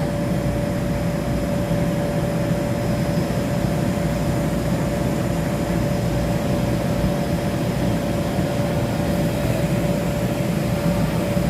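Steady drone of the electric air blowers that keep inflatable bounce houses and slides inflated: a continuous rushing noise with one constant hum.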